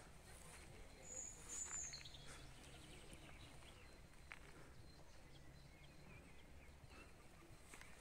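Near-silent natural ambience: faint birds chirp a few times, with a brief high whistling call about a second in. A few soft footsteps on grass and dirt are heard.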